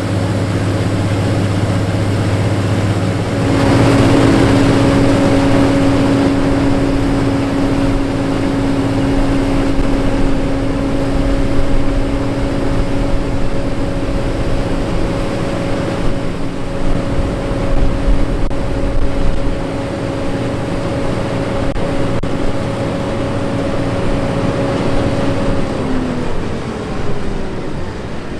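John Deere 9510 combine harvesting wheat: a steady drone of engine and threshing machinery, with a steady whine that comes in about three and a half seconds in and drops in pitch near the end.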